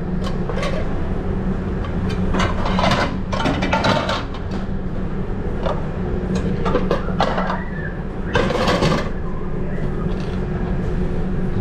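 Commercial kitchen at work: a steady low hum, like an exhaust hood fan, runs underneath several short bursts of clatter and scraping from pans and utensils, about five in all.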